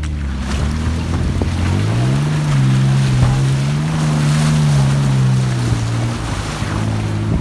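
Off-road SUV's engine pulling harder as it drives through a shallow stream, its pitch rising about two seconds in and easing off a little near the end, with water splashing up around the front tyre.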